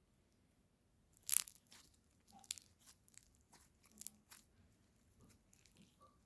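Slime being squeezed and pressed, giving a run of crisp crackling crunches, the loudest about a second in and another burst near four seconds.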